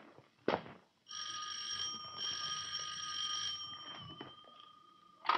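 Electric doorbell ringing for about two and a half seconds with a brief break in the middle, then one tone fading away. A single footstep comes about half a second in, before the ring.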